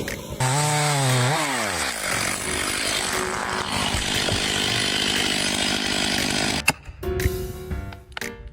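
Chainsaw running: its pitch drops steeply a second or two in as it bites into the wood, then it cuts steadily with a noisy buzz until it breaks off abruptly near the end. Music plays along with it.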